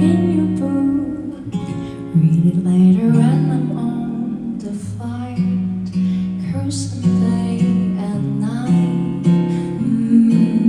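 Instrumental intro of a pop ballad led by acoustic guitar, strummed chords changing every second or so.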